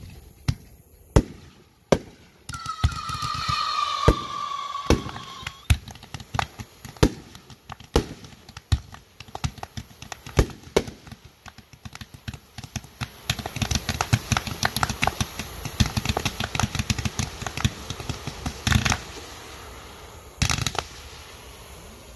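Fireworks going off: sharp irregular bangs, with a falling whistle lasting about three seconds early in, and a dense run of rapid crackling from about 13 to 18 seconds in.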